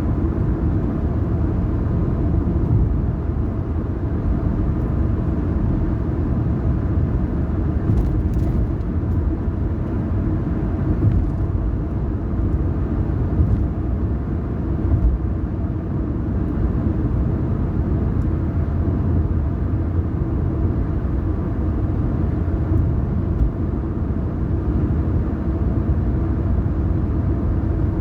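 A car driving at a steady speed: a constant low rumble of engine and tyre road noise.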